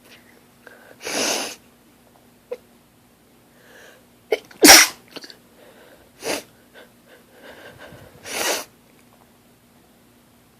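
A woman sneezing four times in a fit, a few seconds apart. The second sneeze, about halfway through, is the loudest and sharpest.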